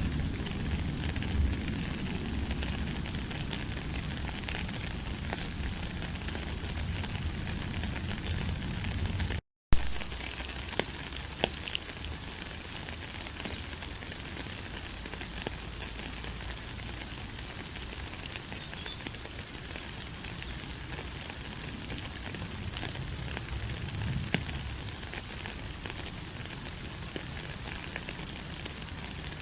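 Steady rain falling, a constant hiss with many small drop ticks, and a few short high bird chirps in the second half. The sound cuts out for a moment about a third of the way in, then resumes with a sharp click.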